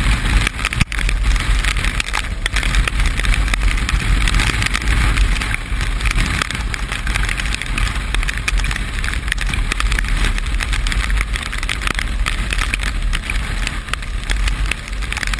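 Steady wind rush and road noise of a vehicle underway in the rain, with a heavy low rumble of wind on the microphone.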